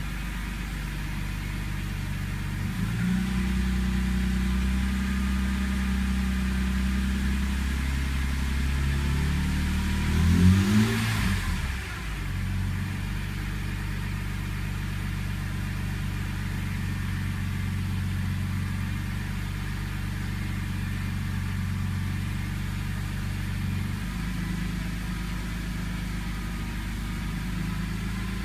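Car engine idling shortly after start-up, during the period the owner says it idles rough. Its engine speed shifts up about three seconds in, rises briefly to a peak near ten seconds and falls back by twelve seconds, then shifts again near the end.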